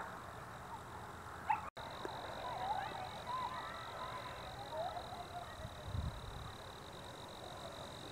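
Distant children shouting and screaming outdoors, heard as scattered faint yells. A steady high whine starts after a brief dropout about two seconds in, and a short low rumble comes about six seconds in.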